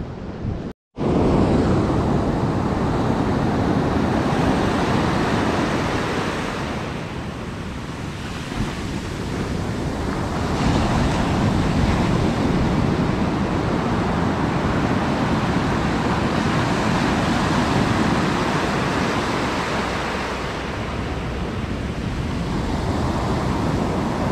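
Rough ocean surf breaking and washing up the beach: a loud, steady rush of water that swells and eases as the waves roll in.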